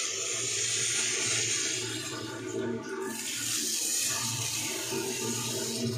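Water running in a steady stream from a Jaquar Aria wall-mounted single-lever basin mixer's spout into a washbasin.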